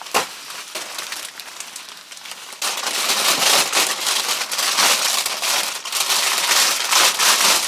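Shipping box being torn open and its packing material handled, a dense crinkling and crackling of cardboard and wrapping that gets suddenly louder about two and a half seconds in.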